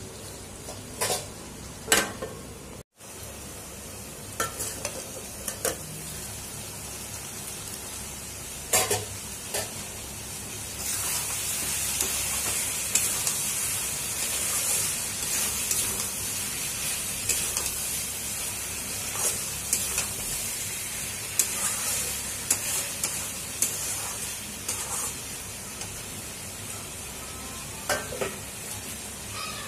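Mutton curry sizzling as it fries in a steel kadai, with a flat metal spatula stirring and scraping against the pan in scattered clicks and knocks. The sizzle grows louder about eleven seconds in and eases off again later. There is a brief gap near the start.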